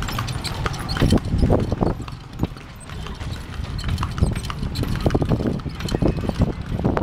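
Horse's hooves clip-clopping on a paved road as it pulls a cart, a quick uneven patter of sharp strikes over a steady low rumble.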